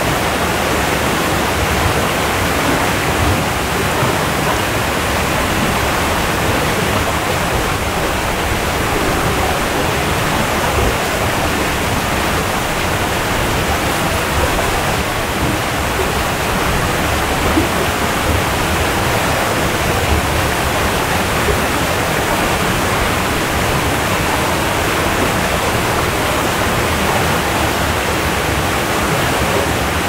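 Waterfall pouring: a steady, even rush of falling water that never changes.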